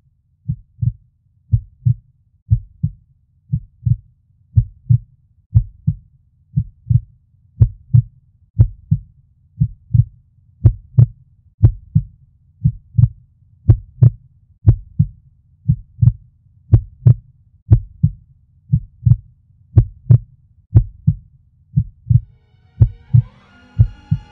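Heartbeat sound effect: a slow, steady double thump, about once a second, low and even. Near the end, sustained music comes in under it.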